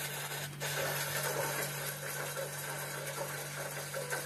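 Recorded rain sound effect playing over a video call: a steady, even hiss of rainfall, with a low steady hum beneath it.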